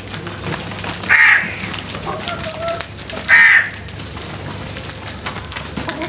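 House crows cawing: two loud, harsh single caws, one about a second in and one about three seconds in.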